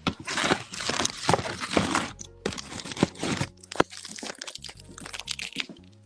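Crinkling and crunching of a snack being handled and eaten, dense for the first three and a half seconds and then thinning to scattered crackles, over background music with a steady low bass.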